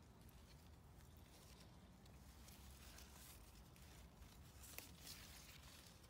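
Near silence: faint outdoor background with a low rumble and a couple of soft clicks in the second half.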